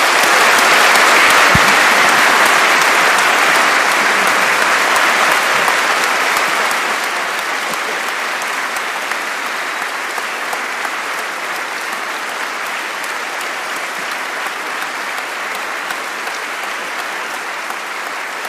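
Audience applauding. The applause starts abruptly and is loudest in the first few seconds, then eases off to a steadier, lower level that keeps going.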